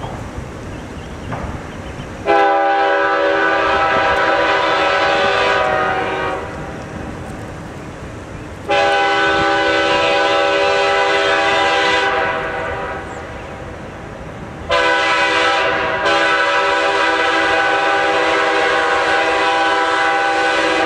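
Freight locomotive's multi-chime air horn sounding two long blasts, then a short blast running straight into a long one: the long-long-short-long signal for a grade crossing.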